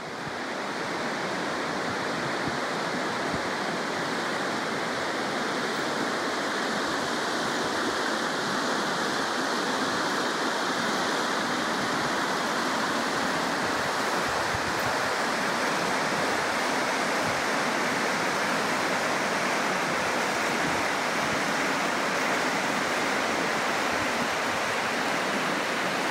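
Fast-flowing river water rushing steadily, fading in at the start.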